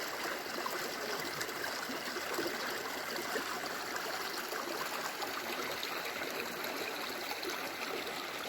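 Mountain creek flowing, a steady, even rush of water.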